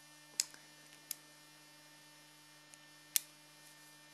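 A few small metallic clicks and ticks from a hex key and the steel parts of a DIY PCP airgun trigger being handled. The sharpest click comes about three seconds in, over a steady low hum.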